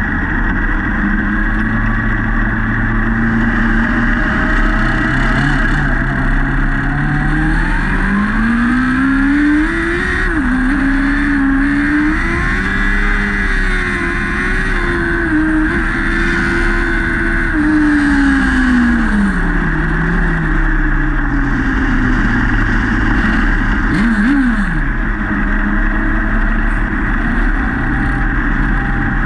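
Lightning sprint car engine heard from on board the car. The revs climb over several seconds, hold high for about eight seconds, then drop back to a low steady run, with one quick rev blip a couple of seconds later. A steady rush of wind and track noise runs under the engine throughout.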